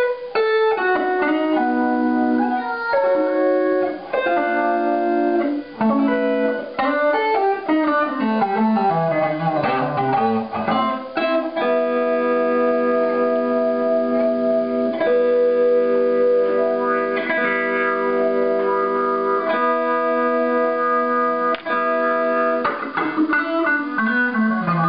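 Electric guitar played through a fixed-wah effect and a splitter/mixer under test. Picked single-note phrases and a falling run come first, then a chord is held and re-struck several times for about ten seconds, and more picked notes follow near the end.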